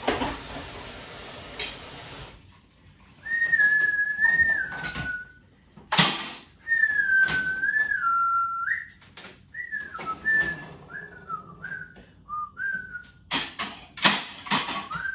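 Kitchen tap running into the sink, shutting off after about two seconds. Then someone whistles a tune in long, gliding notes, among sharp clinks and clatter of dishes and cutlery going into a dishwasher.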